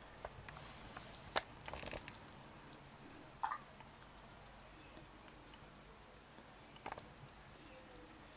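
Kitten chewing and licking soft food from a plate: faint wet mouth clicks, with a few sharper clicks a couple of seconds apart.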